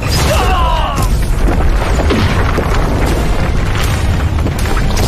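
Animated-battle sound effects: a continuous deep rumble with repeated booms, and swooping magical whooshes in the first second.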